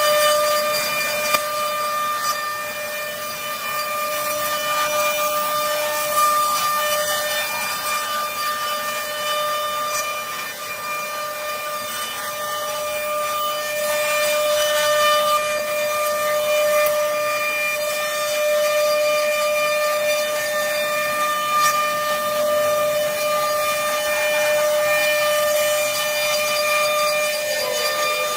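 CNC wood-carving router's high-speed spindle running with a steady high-pitched whine over the hiss of the cutter working wood.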